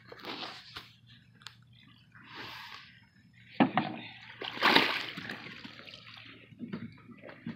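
Water splashing and sloshing inside a floating release sling holding a mirror carp, in several bursts, the loudest about three and a half and five seconds in.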